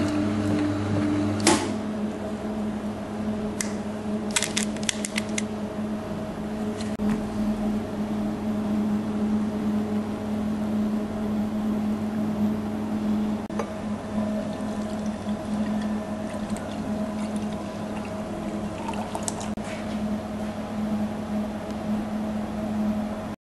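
Electric pomegranate juice press running with a steady motor hum, and juice pouring. There is a sharp click early on and a quick run of clicks about four to five seconds in.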